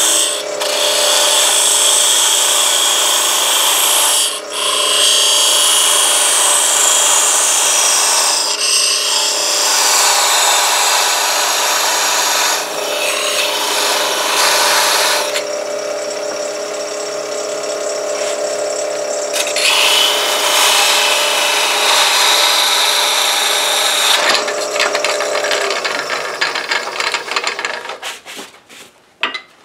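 Wood lathe running while a parting tool cuts into a spinning segmented wood ring, splitting a slice off it: a steady motor hum under a harsh scraping of the cut. The sound dies away near the end.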